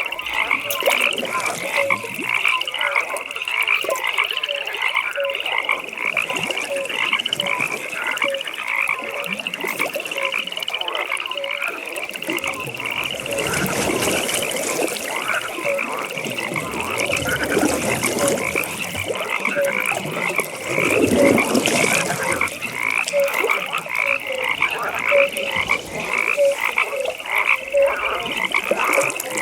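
A chorus of pond frogs croaking without a break. Fast high-pitched calls repeat over and over, and a lower call comes about once a second. The lower croaking thickens for a while in the middle.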